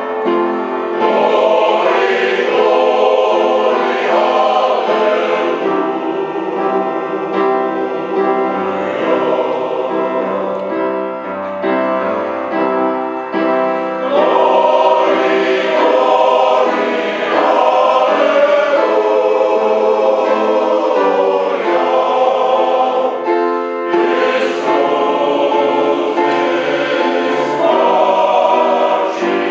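Male voice choir singing sustained chords in several parts, accompanied on an upright piano.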